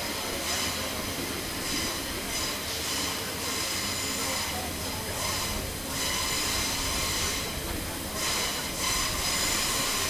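Passenger train running on a curve, heard from an open coach window: a steady rumble of wheels on rail with high wheel squeal that pulses every second or so.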